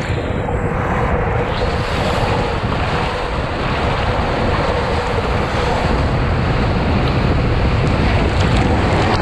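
Water rushing through an enclosed water-slide tube as a rider slides fast down it, a loud, steady rush.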